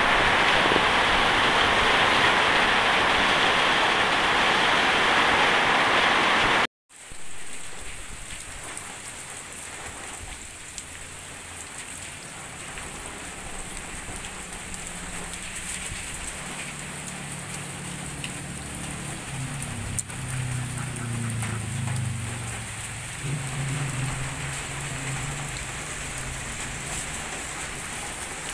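Heavy rain and wind, a loud steady hiss that cuts off abruptly about seven seconds in. Then lighter steady rain, with a low rumble in the second half.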